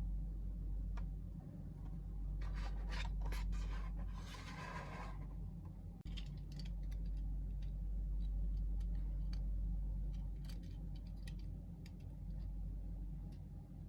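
Small clicks, ticks and scrapes from handling plastic packaging and small parts, with one longer scrape about four seconds in, over a steady low hum.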